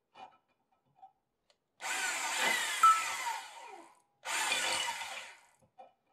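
Hand drill running a 5 mm high-speed-steel stainless-steel drill bit against stainless steel in two short bursts, the first about two seconds and the second about one, each with a whine falling in pitch. The cutting chips have seized onto the bit in the hole.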